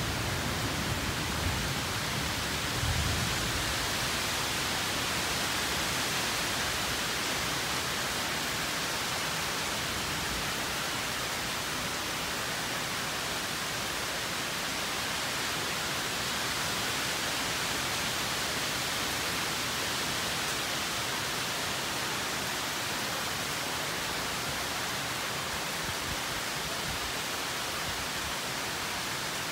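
Heavy downpour: a steady, even hiss of hard rain. A low rumble dies away in the first three seconds.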